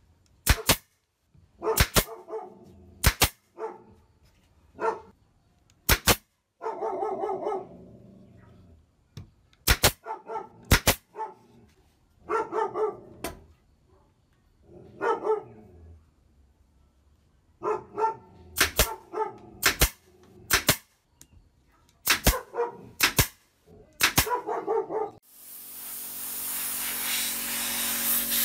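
Nail gun firing into the wooden hooks of a coat rack: a series of sharp single shots, often in quick pairs, with a dog barking between them. About 25 seconds in, a spray gun starts a steady hiss.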